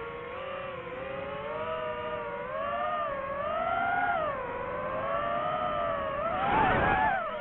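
DJI FPV drone's motors and propellers whining, the pitch sliding up and down as the throttle changes, with a sharp surge in pitch and loudness near the end.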